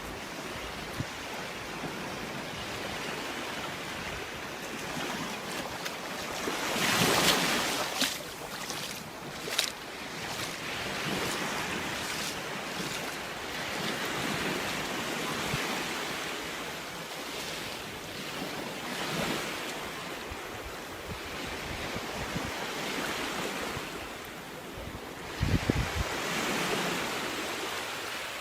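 Surf washing onto a beach: a steady rush of waves that swells loudest twice, about a quarter of the way in and near the end, with wind buffeting the microphone.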